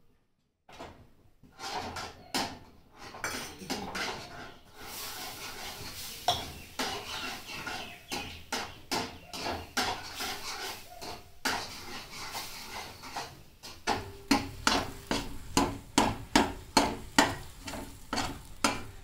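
A metal ladle scraping and clinking against a metal kadai as thick atta halwa is stirred. In the last few seconds the strokes fall into a quick, regular rhythm of about two to three a second.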